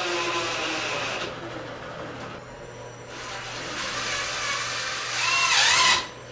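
Cordless drill driving a screw into a wooden post. The motor runs in spurts with a wavering pitch and is loudest just before it cuts off near the end.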